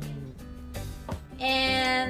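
Background music with held notes over a steady bass line.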